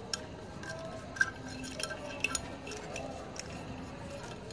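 Small clicks and light metallic clinks as wire connector plugs are pushed onto the terminals of a motorcycle disc horn, with the sharpest clicks about a second in and just after two seconds.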